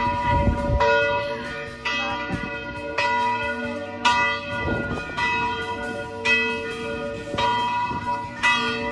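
Church bells ringing in the bell tower, struck about once a second, each stroke ringing on in long overlapping tones.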